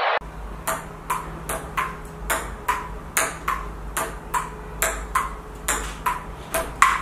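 Table tennis ball clicking back and forth in a steady rally, bouncing on a hard table and off a paddle, about two to three hits a second over a low hum.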